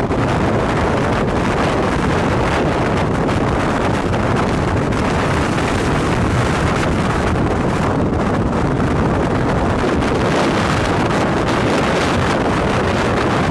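Strong wind blasting across the microphone in a steady, loud rush of noise, the inflow wind close to a large dust-filled tornado.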